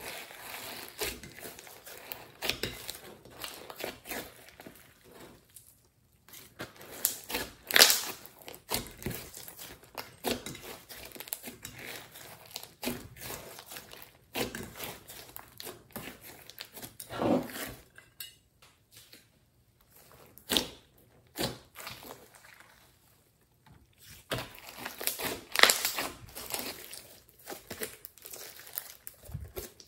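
Hands squeezing, folding and stretching a large mass of glossy slime with clay mixed in, giving irregular sticky crackles and pops, with two short lulls in the second half.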